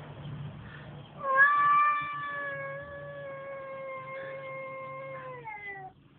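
Tomcat giving one long yowl of about five seconds, starting about a second in. It is loudest at the onset, holds a steady pitch, then drops in pitch just before it cuts off.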